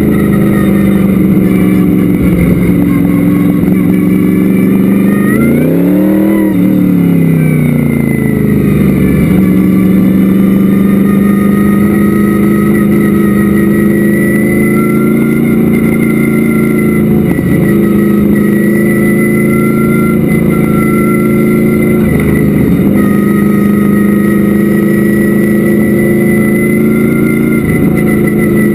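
Vintage modified race car's engine running loud and steady, heard from inside the open cockpit. Its pitch climbs and drops back once about six seconds in.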